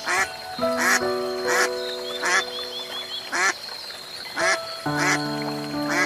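Duck quacking repeatedly, a short call about every second, over background music with long held notes.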